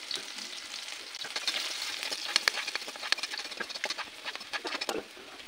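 Chopped onion sizzling in hot oil in a pan while being stirred and sautéed, with frequent short scraping clicks from the stirring spoon against the pan.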